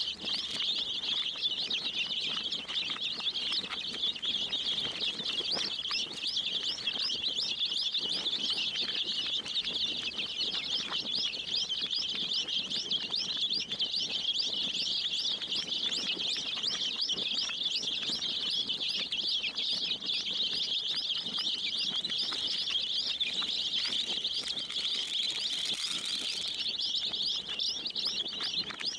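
A large group of baby chicks peeping without pause, many high cheeps overlapping at once.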